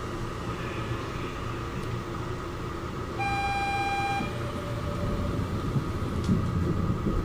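Inside a Kobe Port Liner car, a steady hum of the car's equipment. About three seconds in, a single electronic beep lasts about a second. After it, a low rumble builds as the driverless train gets going.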